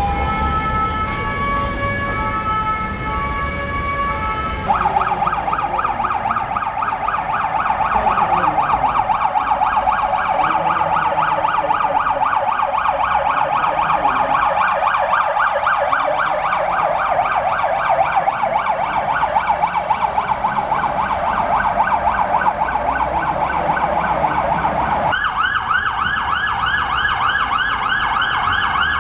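Fire brigade emergency vehicle sirens. First there is a pattern of held tones that step between pitches. About five seconds in, a fast warbling siren takes over, and near the end it switches to a higher-pitched, faster warble.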